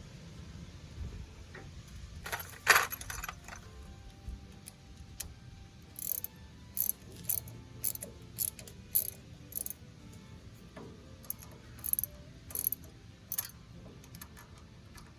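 Metal hand-tool work on a tractor PTO overrun clutch: one loud metallic clatter near the start, then a run of sharp metal clicks about every half second.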